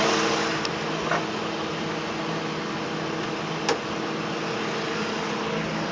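2001 Toyota Echo's four-cylinder VVT-i engine idling steadily, with a few faint clicks over the hum.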